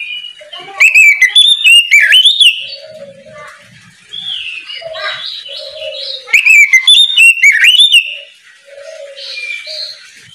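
Oriental magpie-robin singing: two loud bursts of rapid, sweeping whistled notes, one about a second in and another past six seconds, with softer warbling and short low notes in between.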